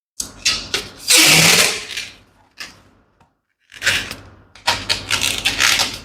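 Latex balloon being handled and knotted: bursts of rubber squeaking and rubbing in two clusters with a short pause between, the longest and loudest stretch about a second in.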